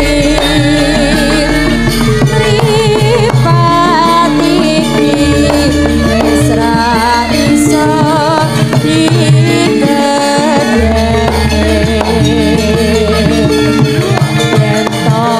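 Javanese gamelan music with a female sinden singing a wavering, ornamented vocal line over it. Struck metal notes repeat below the voice, deep gong tones ring on for several seconds, and drum strokes keep the beat.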